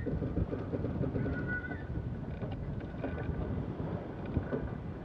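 Wind buffeting the microphone and water rushing past the hull of a sailing yacht under way, with a short squeal a little over a second in and a few light clicks later on.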